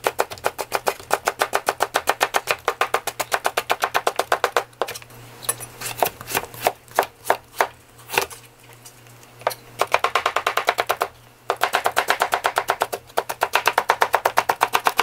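Chef's knife julienning a cucumber on a plastic cutting board: fast, even chopping strokes, about eight a second. Midway the chopping slows to scattered single cuts for several seconds, then picks up fast again near the end.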